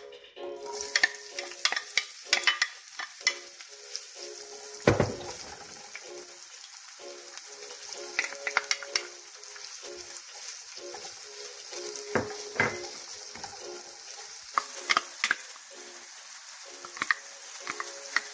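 Chopped onions and bell peppers sizzling in hot oil in a nonstick frying pan. The sizzle starts suddenly as the onions hit the oil, just after the start. A wooden spoon stirs and scrapes through them, with sharper knocks against the pan, the loudest about five seconds in.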